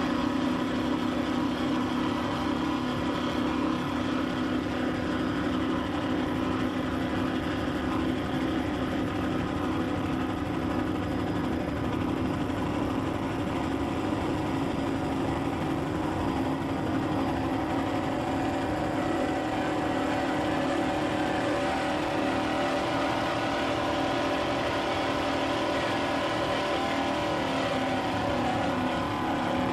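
Offshore racing powerboat engines running steadily at speed, a constant drone with no letting off.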